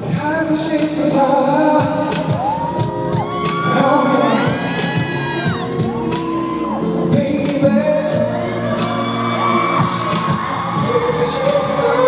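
A male singer sings a K-pop dance song into a headset microphone over a loud backing track with a steady beat.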